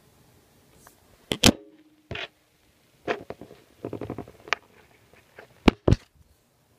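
Handling noise from the camera: a series of sharp knocks and clicks, some in quick clusters, the loudest pair about a second and a half in and a close double knock near the end.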